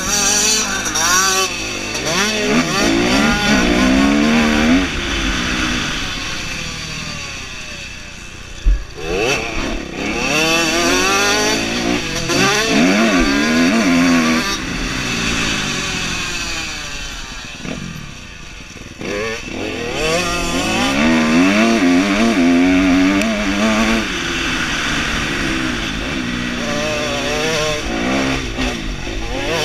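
Dirt bike engine revving hard in repeated rising sweeps as it is shifted up through the gears, heard from the rider's helmet. The throttle eases off about eight and eighteen seconds in, and a single sharp thump comes just before nine seconds in.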